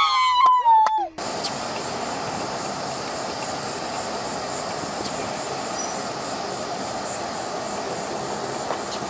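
A woman screaming, cut off abruptly about a second in, followed by steady outdoor background noise: an even hiss with a thin high buzz on top.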